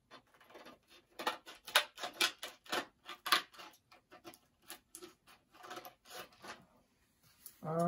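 Plastic blister packaging of model railroad track being handled, giving an irregular run of sharp clicks and crackles, busiest in the first half.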